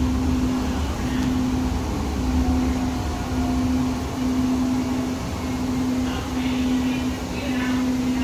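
Interior of a Siemens S200 light rail car running along the track: a low rolling rumble with a steady hum that breaks off briefly about once a second.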